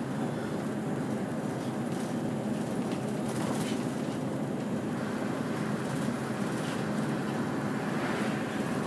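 Inside a moving route bus: the engine running steadily with road and tyre noise, plus a few faint rattles now and then.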